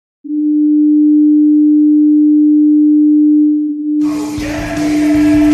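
St. John's IceCaps hockey goal horn blowing one long, steady tone. About four seconds in, the goal song with singing starts over it while the horn keeps sounding.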